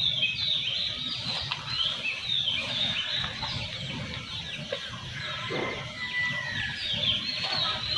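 Many small birds chirping at once: a dense run of short, high chirps, many of them falling in pitch.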